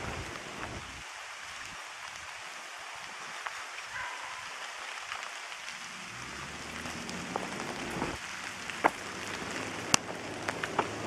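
Steady hiss of rain falling on forest foliage, with scattered sharp ticks of drops from about seven seconds in, the sharpest about a second before the end.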